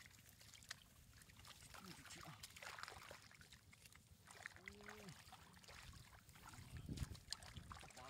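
Faint splashing and sloshing of hands and wriggling catfish in shallow muddy water, with a louder slosh about seven seconds in.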